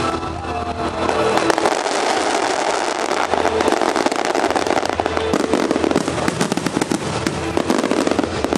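Aerial fireworks display: a dense barrage of bursts and crackling, many rapid pops one on another, growing thicker about a second in.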